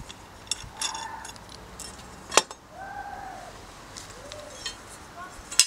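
Steel lawnmower blades clinking and tapping as they are handled after removal from the mower. There are a few scattered metallic clicks with brief ringing, and two sharper knocks, one about halfway through and one at the very end.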